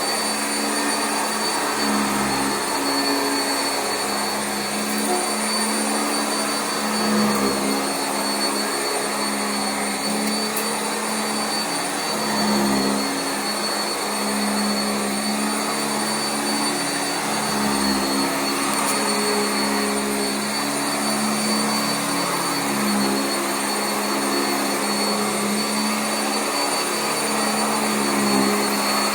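Sanitaire SC679J commercial upright vacuum cleaner running continuously over carpet: a steady motor hum that wavers slightly in pitch, with a constant high whine over the rush of suction.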